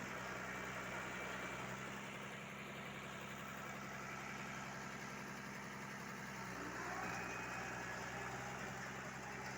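Diesel engine of a BEML BD-50 bulldozer running steadily, its note shifting about two-thirds of the way through.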